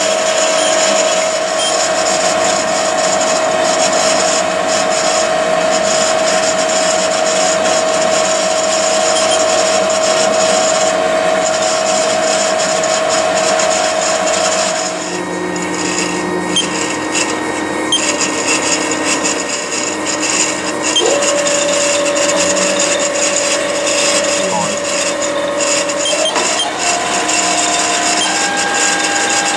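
HAAS TL1 CNC lathe running: a steady drive whine with machine noise for about the first half, then the sound changes. A second motor tone comes in and steps up in pitch twice near the end as the spindle speeds up.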